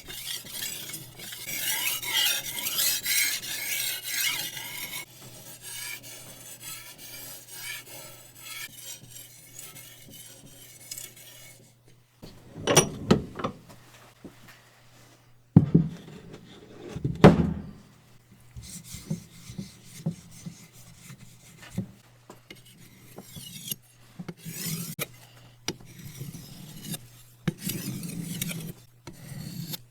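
Hand finishing work on a knife: rasping and rubbing of metal and wood, in a run of short clips that change abruptly, with a few louder knocks around the middle.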